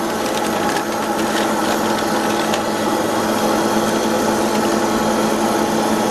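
Freshpop popcorn vending machine's hot-air popper running with a steady motor hum, with a few faint clicks.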